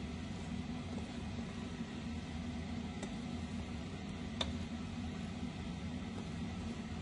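Steady low hum with hiss, and two light knocks, about three seconds in and again a second and a half later, of a wooden spatula against a metal pot as spaghetti is tossed.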